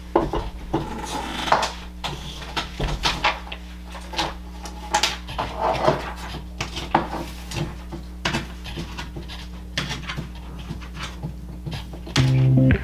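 Paper poster being handled: irregular rustling and crinkling with light taps as the sheet and the puzzle box are moved and put up against a corkboard. Background music comes in near the end.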